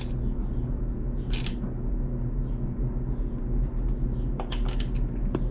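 A hand tool working the rear shock's mounting bolt on a mountain bike: a few short metal clicks and scrapes, clustered near the end, over a steady low hum.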